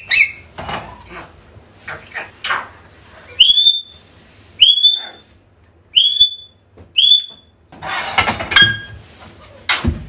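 African grey parrot calling: short clicks and squawks, then four alike whistles about a second apart, each rising quickly and then holding. A harsher, noisier call follows near the end.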